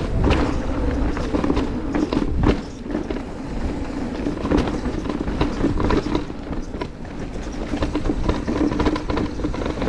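Cube Stereo Hybrid 160 e-mountain bike rattling and knocking as it rolls fast down a rough, bumpy trail, with a steady hum underneath.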